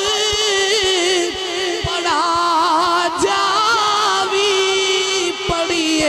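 A man's voice singing a long, drawn-out melismatic line with a wavering vibrato and no distinct words, in the chanted style of a devotional kalma recitation.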